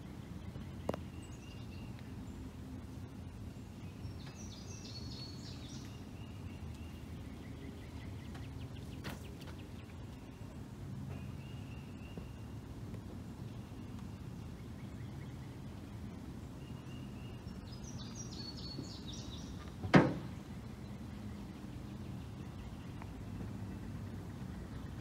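Birds calling over a steady low background noise, with a high trilling song phrase heard twice. About twenty seconds in comes a single sharp knock, the loudest sound, with fainter clicks near the start and about nine seconds in.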